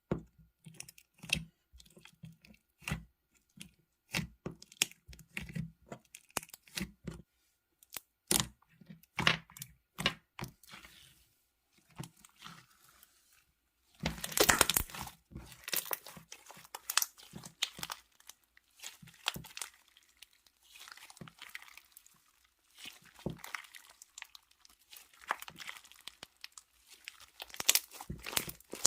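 Hands squishing, stretching and poking slime: a string of sticky clicks and crackly pops, with a dense, louder burst of crackling about halfway through.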